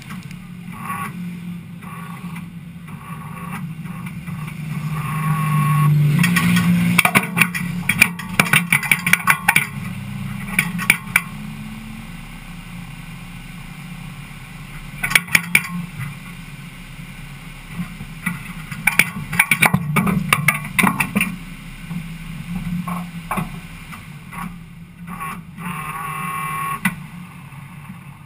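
Ford Cortina race car's engine idling, heard from inside the cabin, with a swell in engine level about six seconds in. Clusters of sharp clicks and rattles come over it at several points.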